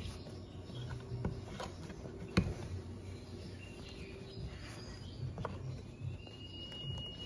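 Quiet handling sounds of a metal hook working t-shirt yarn on a nail loom: soft fabric rustling and scattered light clicks, the sharpest about two and a half seconds in. A thin, steady high tone starts near the end.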